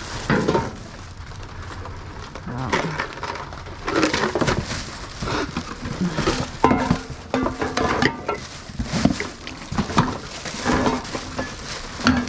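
Hard objects being handled and shifted through trash, with irregular knocks, clatter and clinks. Some clinks ring briefly, like ceramic and tin pieces knocking together.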